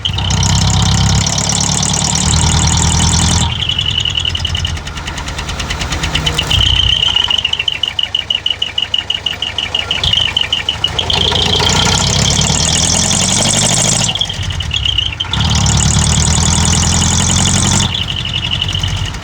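Mitsubishi Fuso Canter's 4D33 four-cylinder diesel running through twin aftermarket mufflers, its exhaust note swelling and dropping back several times, with a fast pulsing stretch a third of the way in.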